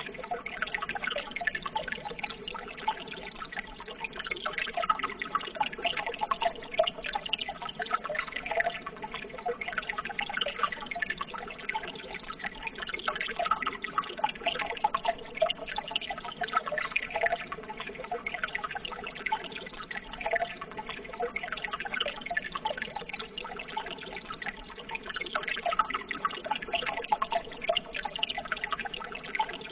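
Running water trickling and babbling steadily, with many small splashes and drips through it.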